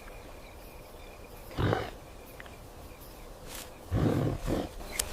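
Leopard grunting in AI-generated audio: one short rasping grunt, then a pair of louder grunts in quick succession about two seconds later, over a faint steady high-pitched chirring.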